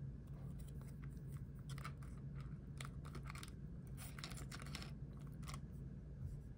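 Faint, irregular rustling and light clicking of Pokémon trading cards and plastic card protectors being handled, with cards slid into sleeves.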